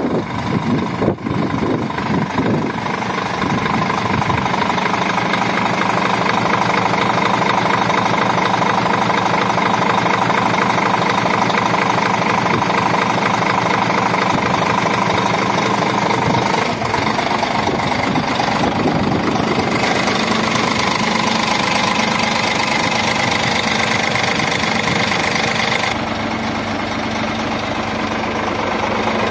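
Scania R 450 tractor unit's 13-litre inline-six diesel idling steadily. Its tone shifts slightly a little past halfway and again near the end.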